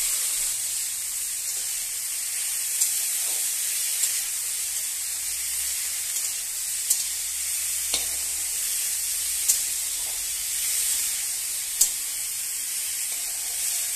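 Steamed cauliflower florets sizzling as they fry in hot soybean oil in a steel kadai, a steady hiss. The metal spatula clicks against the pan about six times as they are stirred.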